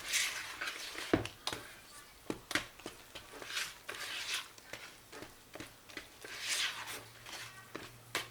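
Rice flour and coconut milk mixture being mixed in a bowl: irregular scraping and swishing with light knocks of the utensil against the bowl.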